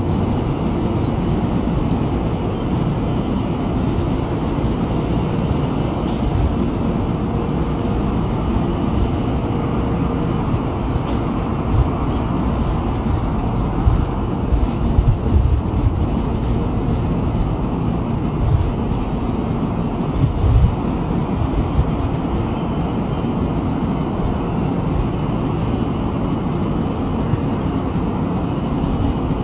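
Electric train running slowly through the station: a steady low rumble with a few louder knocks along the way.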